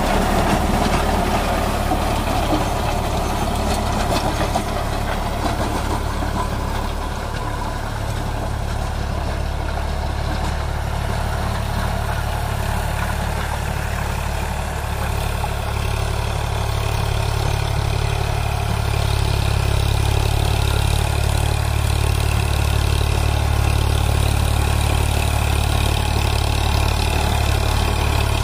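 Eicher 548 tractor's three-cylinder diesel engine running steadily under load as it drives a 6-foot, 54-blade AgriStar rotavator, the blades churning through the soil. The engine drone gets a little louder in the second half.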